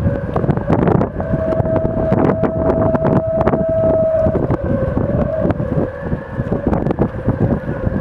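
Wind singing in the shrouds of yachts' standing rigging: a steady whistling tone that is strongest and highest from about one to four seconds in, then wavers lower. Gusts buffet the microphone.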